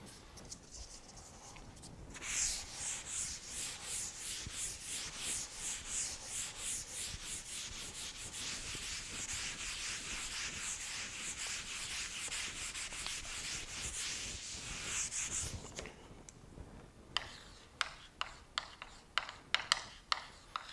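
A chalkboard eraser rubbed back and forth across a blackboard in quick, rhythmic strokes for about thirteen seconds. Then, near the end, a stick of chalk taps and scratches sharply against the board as a word is written.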